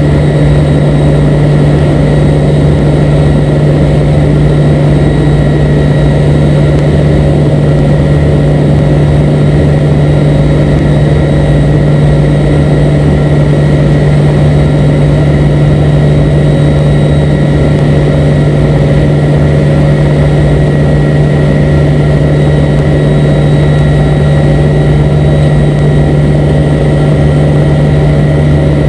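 Loud, steady drone of a Navy C-2A Greyhound's two Allison T56 turboprop engines and propellers, heard inside the cockpit in flight, with a strong constant low hum.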